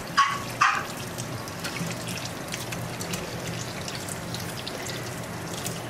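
Kitchen faucet running steadily, water splashing over a puppy and into a stainless-steel sink. Two brief high squeaks come just after the start, about half a second apart.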